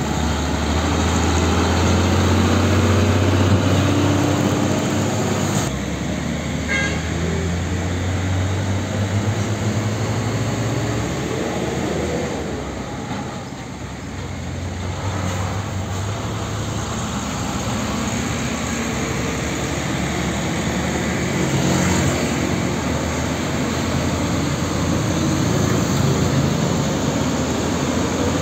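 Heavy diesel trucks' engines pulling away and driving past one after another, with general road traffic. The first engine's low hum is strongest a few seconds in and fades. A second truck's engine builds after a brief lull about halfway through.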